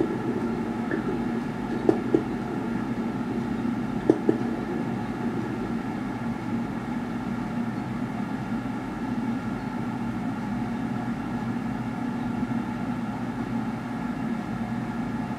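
Fireworks from a live broadcast heard through computer speakers: a steady rumbling hiss with a few sharp bangs in the first four and a half seconds, two of them in quick pairs.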